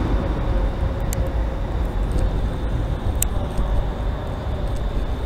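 ScotRail Class 380 Desiro electric multiple unit running: a steady low rumble with a faint steady whine, broken by two sharp clicks, about a second in and just after three seconds.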